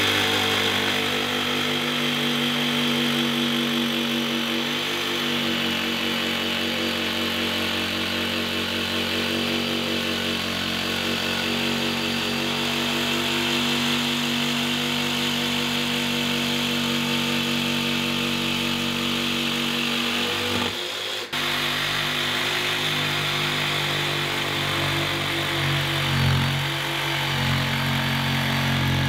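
DeWalt cordless jigsaw running steadily as it cuts out a corner of a sink opening in a countertop, stopping briefly about three quarters of the way through, then cutting again.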